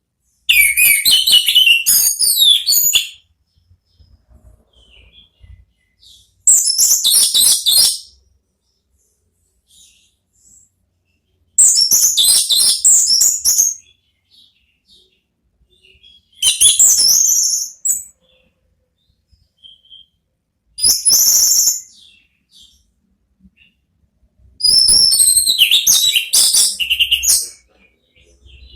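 Orange-headed thrush singing a loud, full 'ngeplong' song: six bouts of quick, jumbled high-pitched phrases, each one to three seconds long, with short silent pauses between them.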